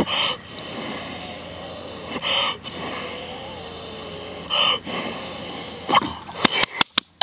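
A man puffing out three short breathy exhalations about two seconds apart as he eats hot food, over a steady high-pitched whine. Several sharp clicks come near the end.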